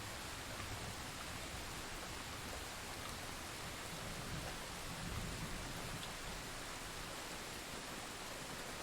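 Steady rain falling, an even, unbroken wash of noise.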